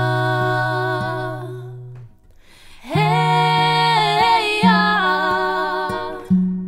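Two female voices singing long, held wordless harmony notes, in two phrases with a short break about two seconds in, over low sustained notes.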